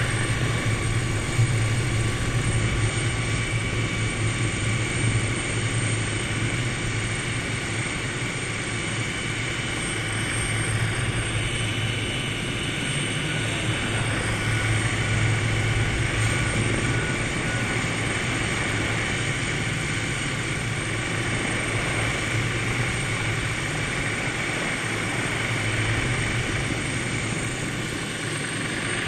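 Helicopter in flight, heard from aboard: a steady drone of turbine and rotor with a strong low hum.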